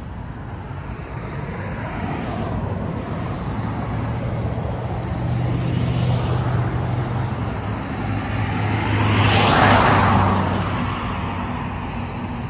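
Road traffic: a vehicle going by on the road, growing louder to pass closest about ten seconds in and then fading, with a low engine hum under the tyre noise.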